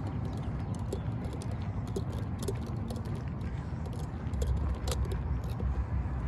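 Footsteps on a concrete sidewalk, a steady run of light clicks about two or three a second, over a low rumble of wind and traffic.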